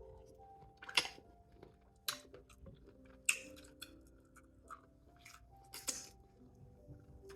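Close-up mukbang eating sounds from a seafood boil: chewing with several sharp wet mouth smacks, over soft mallet-like background music.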